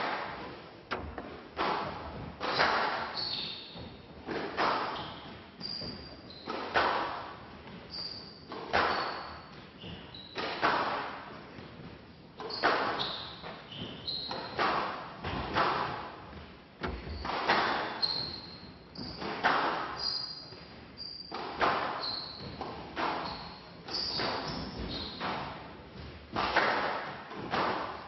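Squash ball being struck by rackets and smacking off the walls in a continuous rally, a hit every couple of seconds, each echoing in the hall. Short high squeaks of court shoes on the floor come between the hits.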